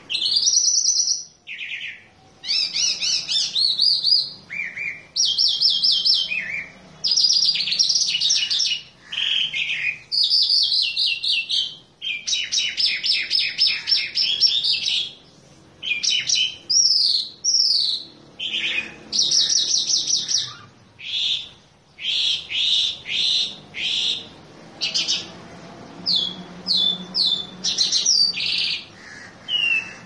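A caged lark singing a long, varied song of fast repeated trills and chirps, broken by short pauses.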